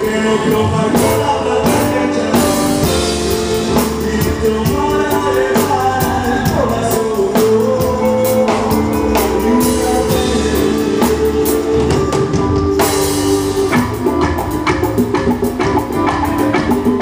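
Live band playing amplified on stage: electric guitars, drum kit and keyboard, with a singer.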